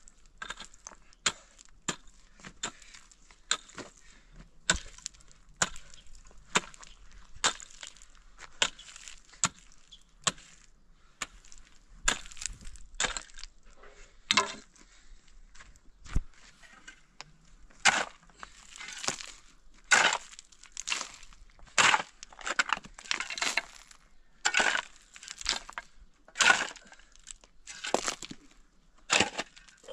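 A pick striking stony ground in repeated sharp blows, a little more than one a second. From a little past halfway these give way to a steel shovel scraping into and scooping loose rock and gravel, each stroke a longer gritty scrape with stones clinking.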